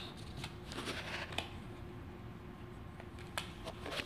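A deck of playing cards being shuffled by hand: soft rustling and flicking of cards in the first second and a half, then quieter with a few light clicks near the end.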